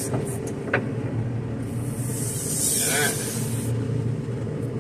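JCB telehandler's diesel engine running steadily, heard from inside the cab, with a hiss in the middle and a short squeak about three seconds in from the steering wheel.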